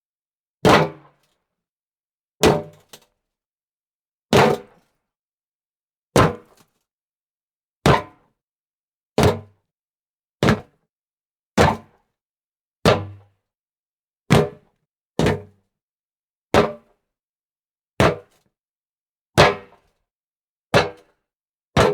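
Someone jumping and landing on hollow wood, over and over: each landing a single dull thud with a short hollow ring, about sixteen of them, roughly one every one to two seconds with silence between.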